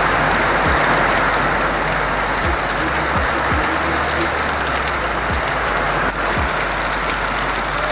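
Heavy rain falling, a dense steady hiss that cuts in suddenly at the start, with the low beat of background music underneath.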